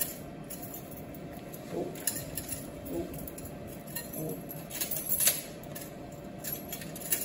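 Stainless-steel surgical instruments clinking against each other and the metal instrument tray as they are handled. There are several separate sharp clinks, and the loudest cluster comes about five seconds in.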